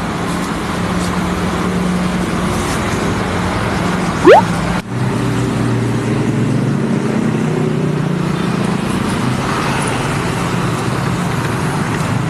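Road traffic with a vehicle engine running steadily. About four seconds in comes a brief, loud, fast-rising whistle-like glide, and the sound cuts out for a moment just after it.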